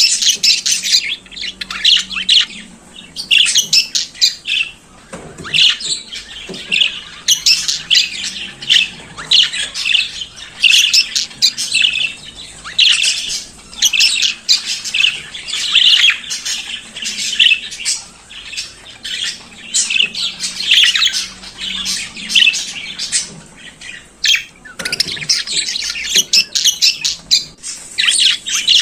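Budgerigars chattering and warbling: a continuous run of fast chirps, trills and squawks.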